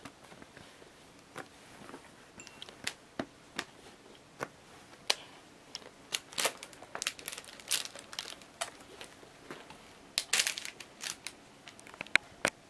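Osechi box tiers handled and set down on a cloth-covered table: scattered light knocks and taps, thickening into a denser rustle about ten seconds in, with two sharp clicks near the end.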